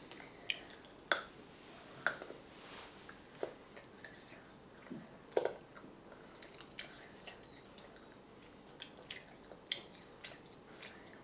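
Nuts being chewed: a scattered run of sharp, irregular crunches and clicks.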